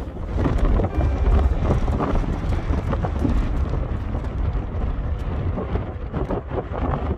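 Strong gale-force wind buffeting the microphone, a loud, gusting low rumble.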